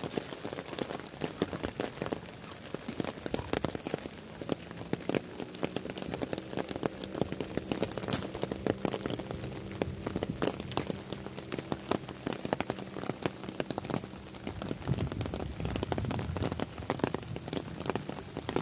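Steady rain falling on lakeside grass, leaves and open water, with many close drops ticking sharply. A faint low hum runs under it through the middle stretch.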